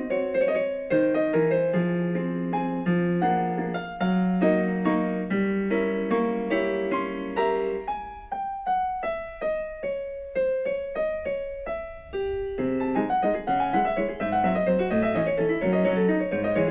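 Background piano music: a melody over held bass notes, thinning to single detached notes about halfway through, then fuller chords again near the end.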